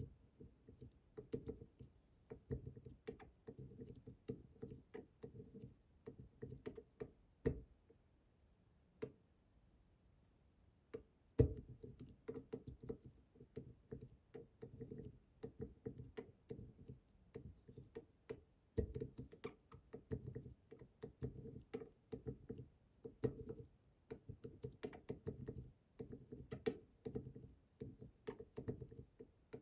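A pick pushing and tapping the tapered pins of an IZIS Bramah-style pump lock under tension: a faint, quick run of small clicks and taps that pauses for a few seconds about eight seconds in, with a few sharper clicks along the way.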